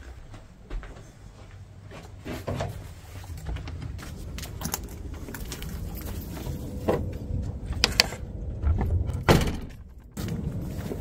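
Footsteps, then an old panelled wooden door being worked open: its metal handle rattles and the door knocks and thuds several times, loudest about nine seconds in.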